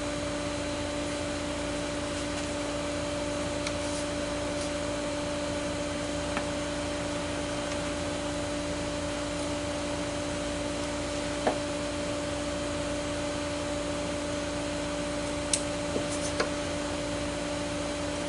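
Steady fan-like hum with a constant low tone, as from an air conditioner or similar running machine in the workshop, with a few light wooden taps and clicks scattered through it as the bench pieces are handled and pressed together.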